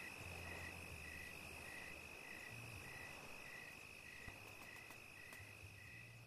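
Faint chorus of insects: one keeps up a steady high trill while another chirps in regular pulses, about two a second.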